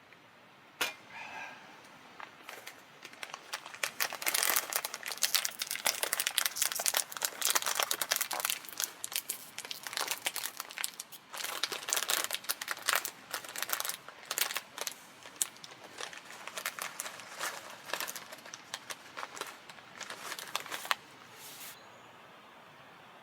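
Crinkling and rustling of something being handled, in quick irregular bursts that start about a second in and stop shortly before the end.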